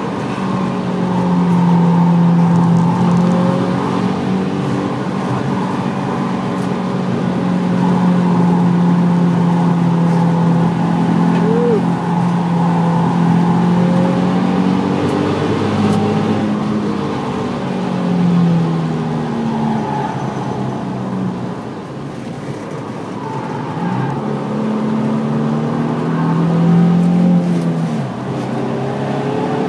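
Nissan 350Z's 3.5-litre V6 under hard driving, heard from inside the cabin. The engine note holds steady, then falls and climbs again several times as the car lifts and accelerates.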